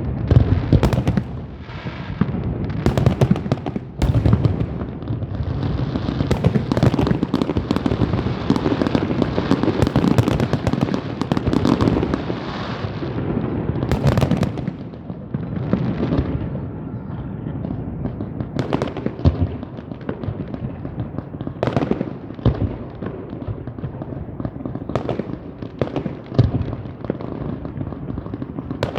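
Fireworks going off in a rapid, continuous barrage of bangs and crackling, densest in the first half and thinning to separate booms toward the end.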